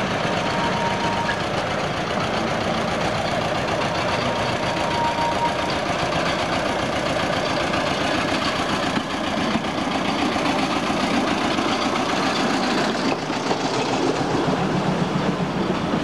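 Narrow-gauge train passing close by, its locomotive engine running steadily as the wagons roll over the track.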